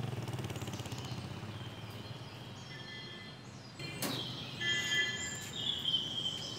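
A metal garden gate's latch clacks once about four seconds in as the gate is opened, over outdoor ambience with birds chirping.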